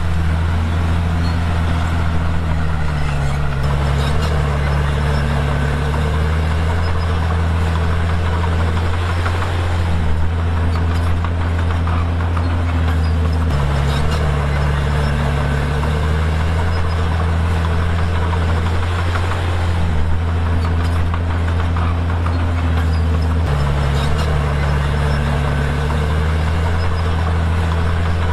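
Komatsu D51PX crawler dozer's diesel engine running steadily at working load. Its pitch sags and recovers again and again every few seconds as the load comes on and off.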